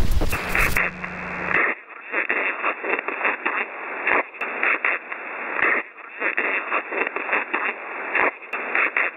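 Crackling, hissing static squeezed into a narrow telephone-like band, flickering irregularly up and down, as from an open phone or radio line with nothing coming through. For the first second and a half a fuller noise with a low hum plays before it narrows.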